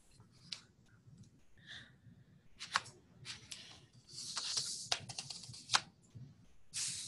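Faint, scattered clicks and taps at a computer, a little under a second apart, with a short rustle about four seconds in.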